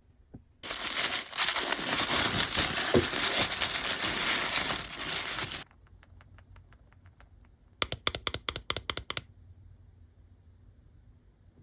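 Blind-box toy packaging crinkling and crackling as it is opened, for about five seconds. A few faint ticks follow, then a shorter burst of crackling about eight seconds in.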